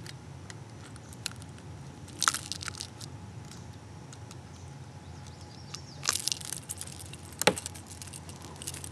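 Light metal clicks and rattles of a hooked lure and pliers being handled while a smallmouth bass is unhooked: a short cluster about two seconds in, another about six seconds in, and one sharp click a moment later.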